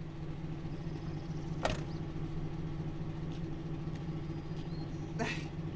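Box truck (2009 GMC Savana G3500 cutaway) engine idling with a steady hum. A single sharp click comes about a second and a half in, and a brief swish near the end.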